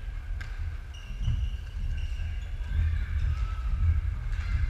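Badminton play in a large sports hall: sports shoes squeaking on the wooden court floor on and off, and a sharp click of a racket hitting a shuttlecock about half a second in, over a steady low rumble.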